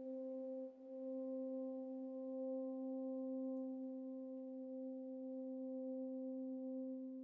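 A steady, sine-like tone near middle C from live electronics, with a few faint overtones above it. It is held without change, apart from a brief dip just under a second in.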